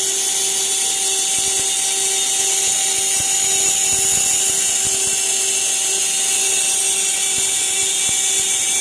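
CNC router spindle milling aluminium plate: a steady high-pitched whine and hiss with a lower hum underneath.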